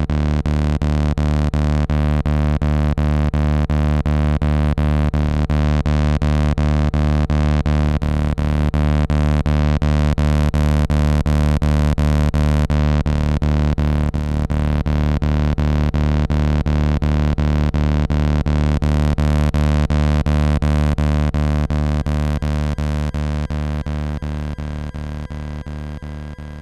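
Electromagnetic field of a shop's anti-theft security gate made audible through induction headphones: a loud electric hum of many steady tones with a regular pulse several times a second. It fades out near the end.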